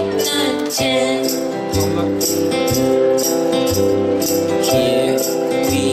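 Music with a steady beat: held instrumental notes over bass notes about once a second, with regular high percussion strokes.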